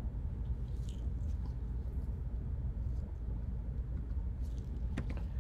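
Steady low room rumble, with a few faint clicks near the end from keys being typed on a computer keyboard.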